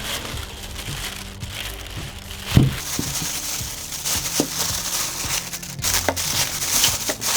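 Packaging rustling and crinkling as a pair of wall mount speaker brackets is unpacked, with a few knocks and clunks, the loudest about two and a half seconds in.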